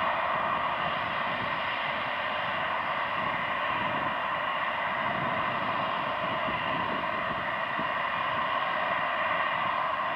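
Jet engines of a twin-engine widebody airliner running steadily as it rolls away down the runway, a constant even noise with no changes.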